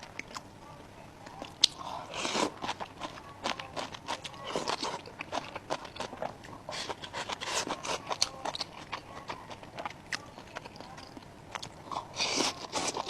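Close-up eating sounds: a person biting and chewing food with a crunch, many small wet mouth clicks, and a few louder bites or slurps about two seconds in, around four and a half seconds, and near the end.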